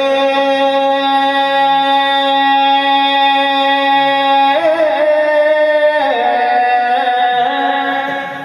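A man's voice drawing out long sung notes in devotional recitation: one note held steady for about four and a half seconds, then a few shorter held notes that step up and down in pitch.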